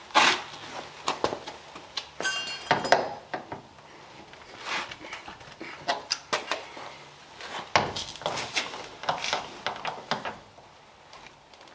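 Hand tools and metal car parts clinking and clattering in irregular knocks and clicks, with a short high-pitched tone about two and a half seconds in.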